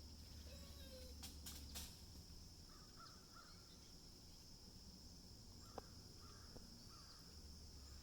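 Quiet outdoor ambience broken by sharp knocks of pine cones falling and striking things below the pines: three quick knocks about a second and a half in, then a single one near the six-second mark. Faint bird calls come in between.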